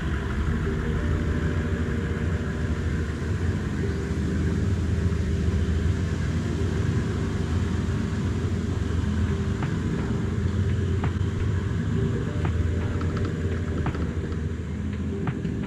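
Toyota LandCruiser 70 series engine running steadily at low revs, with a few light clicks scattered through the second half.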